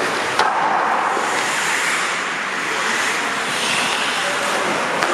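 Ice hockey game sound in an indoor rink: a steady hiss of skates on the ice and rink noise, with a sharp knock about half a second in and another near the end.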